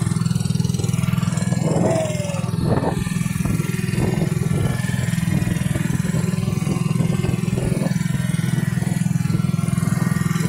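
Small boat engine running steadily with a fast, even beat, with one short falling tone about two seconds in.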